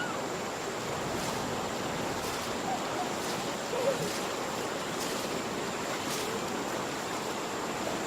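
Steady rushing background noise, with faint distant voices now and then.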